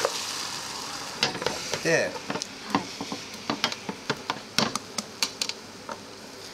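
Beaten egg sizzling in a square tamagoyaki pan just after a pour, the sizzle dying down within the first second or so. Then a quick run of clicks as long cooking chopsticks tap and scrape against the pan and the egg bowl while the new egg is spread under the roll.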